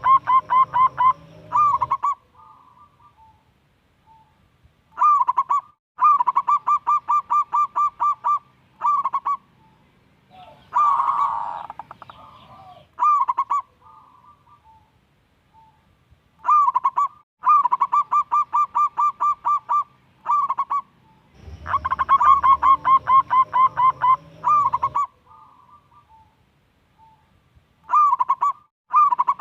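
Zebra dove (perkutut) singing: repeated phrases of rapid cooing notes, about five a second, each phrase lasting one to three seconds with pauses between. A brief rougher noise sounds about eleven seconds in.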